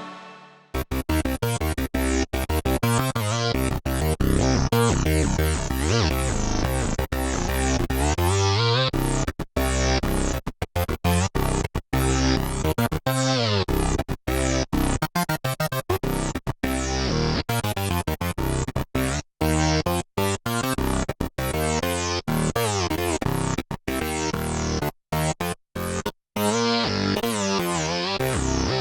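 Modal Electronics Carbon 8x digital synthesizer playing a plucky keyboard patch: quick runs of short notes, each bright at the attack and quickly dulling, broken by brief gaps.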